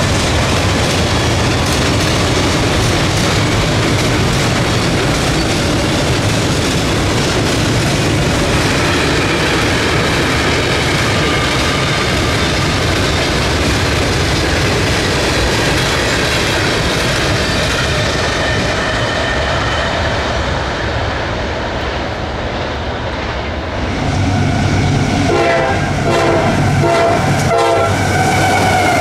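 A CSX diesel-hauled freight train approaching and passing at speed, sounding its horn with long blasts from about a third of the way in. Near the end the locomotive goes by close, its wheels clacking rapidly over the rail joints, and the horn's pitch falls as it passes.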